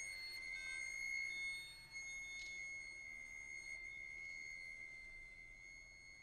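Faint contemporary chamber music: a single high, steady note sustained on bowed strings, thin and whistle-like, with a brief soft rattle about two and a half seconds in.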